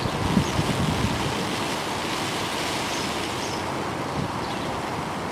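Class 201 'Hastings' diesel-electric multiple unit approaching, its running faint under a steady hiss of wind on the microphone, with low buffeting from the wind in the first second.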